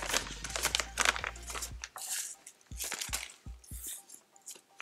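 Brown paper bag rustling and crinkling in a stretch of quick crackles as it is handled, over faint background music.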